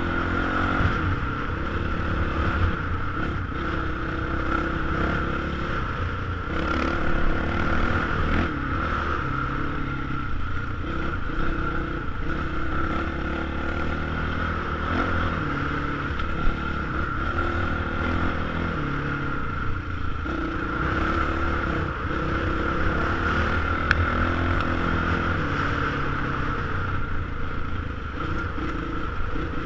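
Off-road motorcycle engine running under way on a dirt trail, its pitch stepping up and down with throttle and gear changes, heard from a helmet-mounted camera. A few sharp knocks stand out, the loudest about halfway through.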